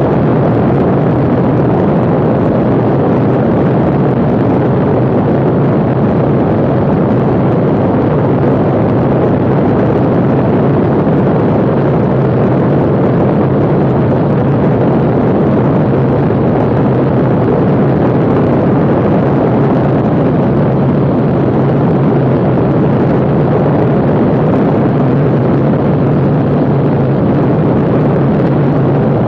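Cessna 182P Skylane's six-cylinder piston engine and propeller droning steadily in flight, with a constant low hum under a thick rush of air noise.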